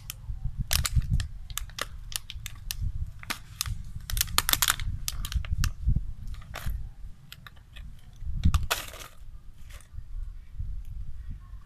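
A plastic water bottle crackles and clicks as a macaque bites and squeezes it. The sharp clicks come irregularly, with a longer crunching crinkle about nine seconds in, over a low rumble.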